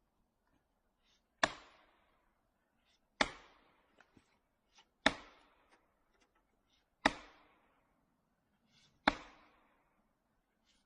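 Chopping blows on wood: five sharp strikes about two seconds apart, each ringing out briefly.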